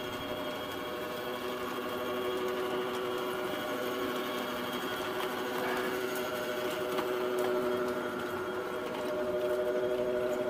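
Homemade ride-on miniature railway locomotive running along its track, its drive motor giving a steady whine of several held tones, with a few faint clicks midway.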